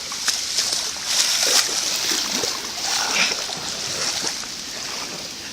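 Footsteps wading through shallow floodwater on a flooded woodland path, with repeated irregular splashes over a steady hiss of water.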